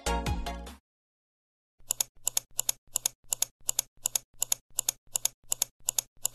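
Electronic background music ends and fades out within the first second. After a short silence, an even run of sharp clicks begins, about three a second, from the outro's clicking sound effect.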